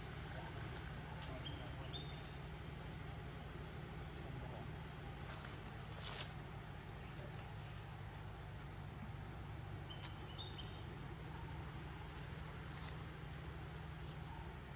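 A steady chorus of insects in the forest, a continuous high buzzing at two unbroken pitches. Short chirps come in twice, early and about ten seconds in, and a faint click or two sounds about six seconds in.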